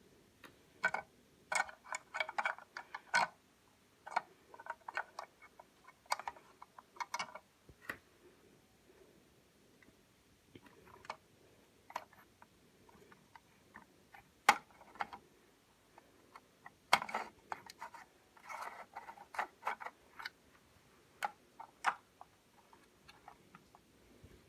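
Handling noise: irregular small clicks and taps as a plastic scale model tank is turned in the fingers. They come in clusters with quiet gaps, not as an even tick.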